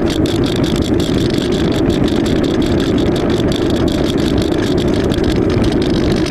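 Steady rush of wind and electric motor noise from an AXN Floater Jet RC plane in flight, picked up by its onboard FPV camera microphone.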